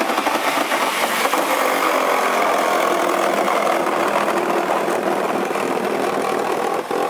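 Corded reciprocating saw running steadily under load as its blade cuts through the thin sheet-metal roof of a Volkswagen.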